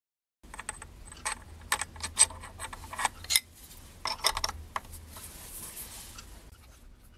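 Irregular metallic clinks and knocks from handling a small brass workpiece and a collet chuck, with a spanner worked on the chuck's nut. The clinks begin about half a second in and thin out after the middle.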